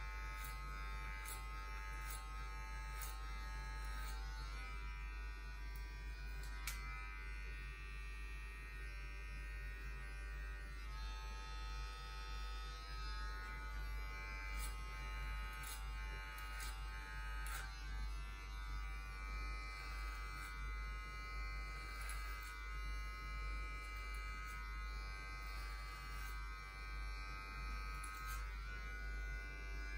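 Cordless electric hair clippers running with a steady buzz as they trim hair over a comb, with a few light clicks scattered through.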